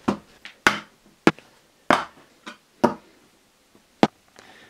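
A series of sharp knocks and clicks at irregular intervals, about six of them in under five seconds.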